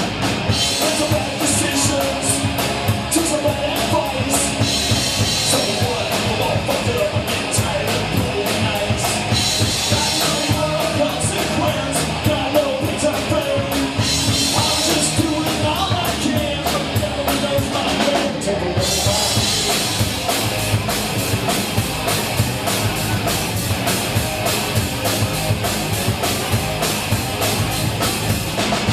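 Live rock band playing a song: a drum kit keeps a steady, driving beat with many cymbal hits, under the rest of the band.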